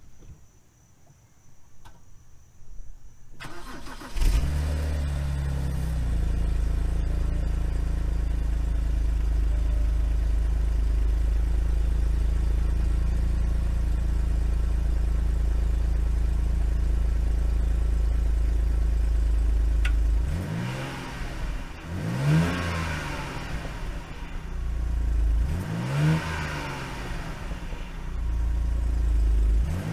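BMW 328i's N52 3.0-litre straight-six on its stock exhaust starting up about four seconds in, then idling steadily. Near the end it is revved three times, each rev rising and falling back to idle.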